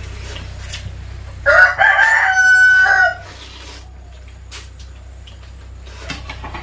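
A rooster crows once, about a second and a half in, and the call lasts about a second and a half. A steady low hum runs underneath.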